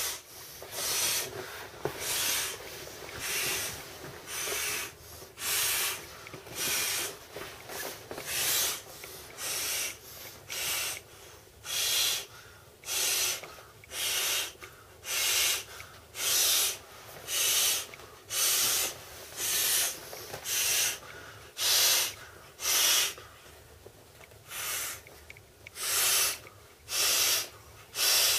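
A person blowing up an inflatable swim tube by mouth: rhythmic, hissing breaths into the valve, about one a second.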